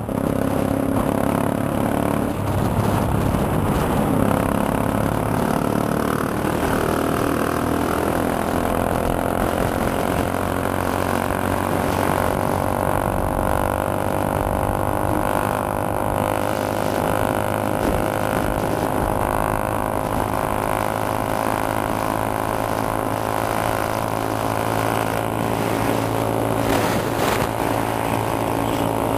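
Motorcycle engine running as the bike rides along a road at speed, with wind noise over it. The engine note shifts over the first several seconds, then settles into a steady drone.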